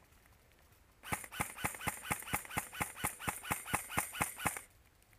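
Airsoft rifle firing a steady run of about fifteen rapid shots, roughly four a second, starting about a second in and stopping after about three and a half seconds.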